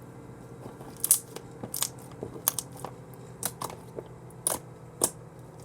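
Glossy glitter slime with rainbow beads being squished and stretched by hand, giving about seven sharp, wet clicks and pops at irregular intervals, starting about a second in.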